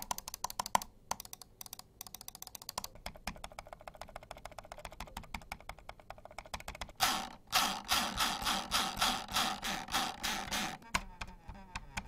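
Logitech mouse buttons clicked over and over to compare the original MX Master with the MX Master 3S, whose clicks are much quieter. A quick run of clicks, a long stretch of faint soft clicks, then a louder, evenly paced run of sharper clicks from about seven seconds in.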